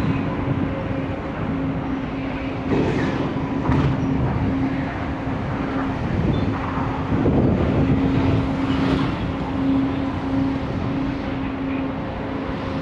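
Wind buffeting the microphone in gusts, loudest in surges a few seconds in and again about two-thirds of the way through, over a steady low machinery hum from an oil tanker.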